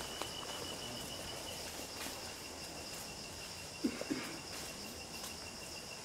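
Rainforest insect chorus: two steady high-pitched insect calls, one of them pulsing rapidly, with a couple of soft footfalls of hikers on the dirt trail about four seconds in.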